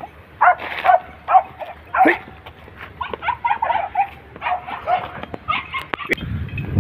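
Hunting dog barking in a fast series of short, repeated barks.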